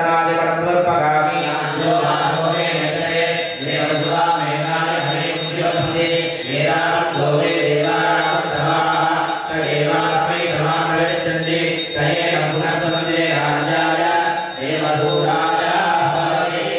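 Vedic mantras chanted over a brass puja handbell that is rung fast and evenly, about four strokes a second, from about a second in until just before the end: the bell rung while the lamp is waved before the deity (aarti).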